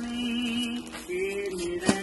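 Background music of a voice singing slow, long-held notes. Near the end there is a single sharp crackle, from plastic wrapping handled by hands.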